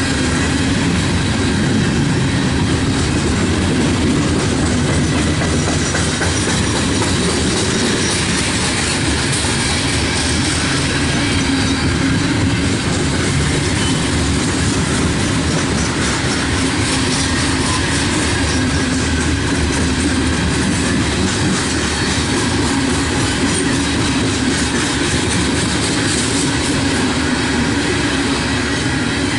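Loaded open-top coal cars of a CSX freight train rolling past close by: a loud, steady, unbroken noise of steel wheels on rail.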